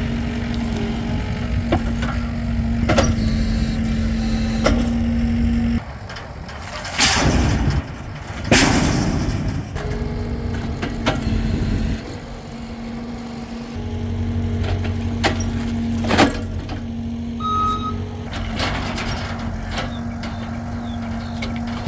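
Heavy vehicle engine running steadily with a held hum, broken by a few loud knocks about seven and eight and a half seconds in.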